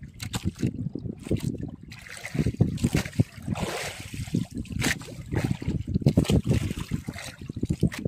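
Sea water sloshing and slapping against a small boat's hull in irregular knocks, with wind buffeting the microphone, briefly stronger a few seconds in.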